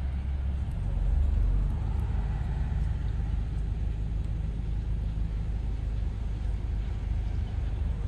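Low, steady outdoor rumble that swells briefly about a second in; no bird calls stand out.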